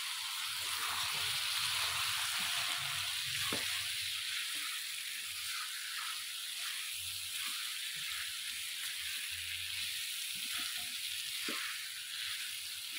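Potatoes and freshly added eggplant wedges sizzling steadily in hot oil in a kadhai. A spatula stirs them, with a few soft scrapes and knocks against the pan.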